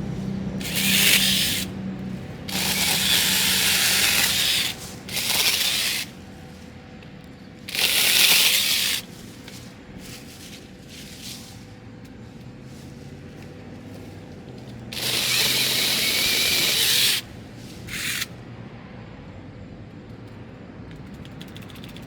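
Battery-powered 6-inch mini chainsaw with a brushless motor, run in about six short bursts as it cuts through small sprouts, each burst starting and stopping abruptly. Quieter stretches lie between the bursts.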